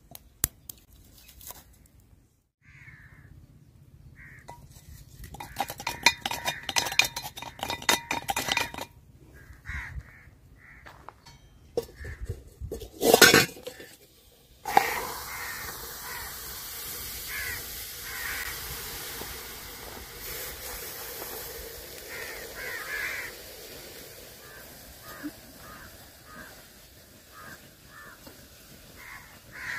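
Coffee poured into a red-hot clay kulhad cup set in a steel pot: it sets off a sudden, steady hissing sizzle that starts about halfway through as the coffee boils and foams over, which is the tandoori-coffee method. Earlier there are scattered clattering knocks and one sharp loud clatter. Crows caw repeatedly in the background.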